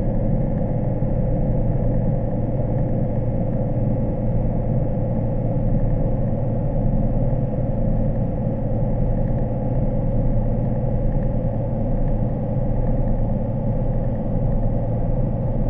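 Steady motor hum of an underwater craft's propulsion, with a constant whine over a low drone, even in level throughout.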